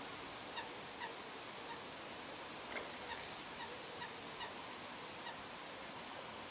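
Common moorhen chicks giving short, faint peeping calls, repeated irregularly about once or twice a second, the begging calls of chicks being fed by a parent, over a soft steady hiss.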